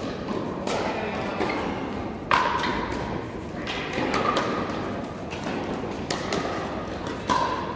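Pickleball paddles hitting a hard plastic ball during a rally: a string of sharp pocks at uneven spacing, about one every half second to a second, each with a short ring. The loudest comes a little over two seconds in.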